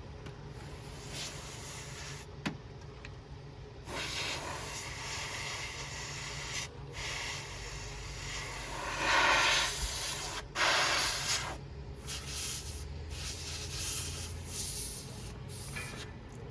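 Hissing bursts of compressed air from an aerosol duster can, sprayed into a desktop computer's case, starting and stopping several times. The spray picks up about four seconds in and is loudest around the middle. The can has gone icy cold from heavy use.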